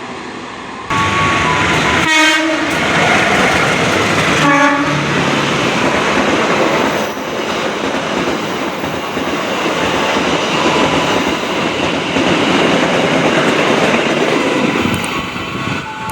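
A train sounds its horn in about three short blasts, then its cars rumble past with wheels clicking over the rail joints in a steady, loud noise that fades slightly near the end.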